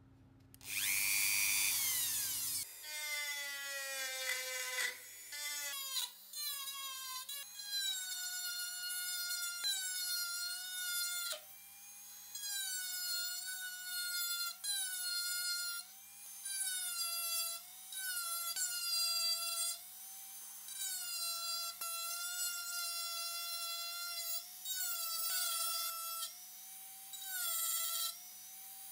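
Small electric drill motor whining in repeated short runs of one to two seconds with brief pauses between, its pitch steady once up to speed. Near the start there is a louder, harsher burst, followed by a whine that falls in pitch as the motor slows.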